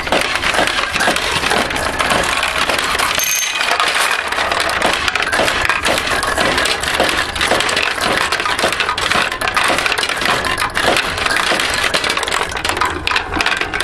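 Agin Model A recycler pachinko machine paying out a jackpot: steel balls pouring through the jackpot mechanism in a dense, continuous metallic clatter, with a brief high ring about three seconds in.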